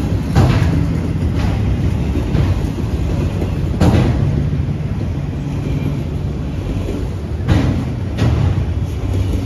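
Freight train of enclosed autorack cars rolling past at close range: a steady rumble of wheels on rail, broken by a few sharp clacks, the loudest nearly four seconds in.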